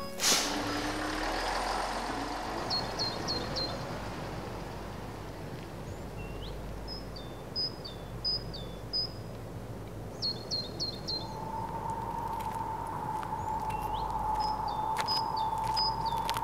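Outdoor forest ambience: a bird chirping in short runs of three or four quick high notes, repeated every few seconds over a steady background hiss. A low sliding rumble fades away in the first few seconds, and a steady high hum sets in about two-thirds of the way through.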